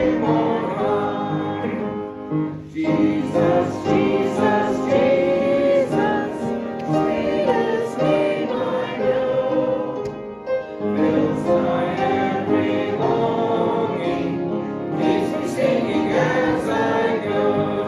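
Church congregation singing a hymn together, phrase after phrase, with short breaths between lines.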